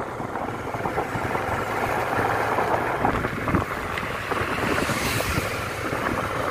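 Motorcycle riding along a road, its engine running under a steady rush of wind on the microphone, with a brief swell of hissing noise about five seconds in.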